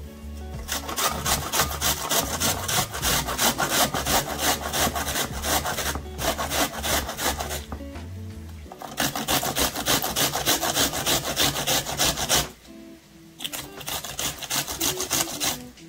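An onion rubbed hard against a metal box grater: fast, even rasping strokes, several a second, which stop briefly twice and then go on.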